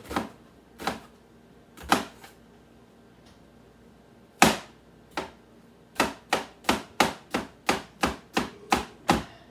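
Kitchen knife chopping an onion on a cutting board: a few slow cuts, a pause of about two seconds, then a quick even run of chops, about three a second, near the end.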